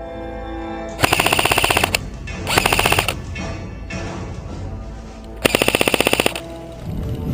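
Airsoft electric gun firing three full-auto bursts of rapid clicks, roughly fifteen shots a second. The first and last bursts last about a second each; the middle one is shorter.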